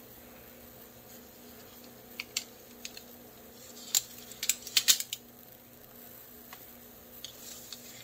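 Bradley Kimura balisong flipped in the hand: sharp clicks and clacks as the handles and latch knock together, a few separate ones about two seconds in, a quick run of them around the four-to-five-second mark, and a couple more near the end.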